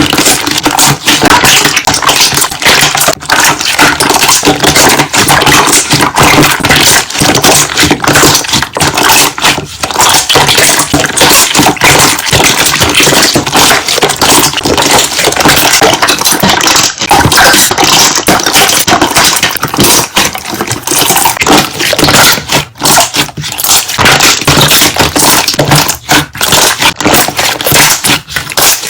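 Large batch of slime being pressed and worked by hand, its trapped air bubbles popping in a dense, continuous crackle.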